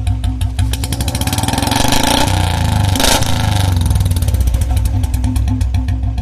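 Royal Enfield Bullet single-cylinder engine running through a long Punjab aftermarket silencer, thumping at idle, then revved up and let back down in the middle. There is a brief sharp burst about three seconds in, near the top of the rev.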